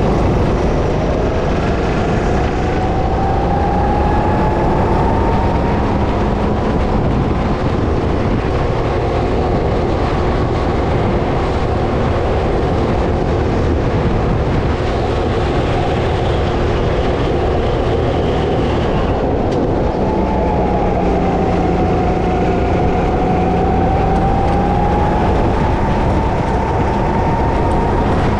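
Go-kart engine running at racing speed, heard onboard. Its pitch climbs over the first several seconds, holds high, dips a little past two-thirds through and climbs again near the end, over a steady rush of noise.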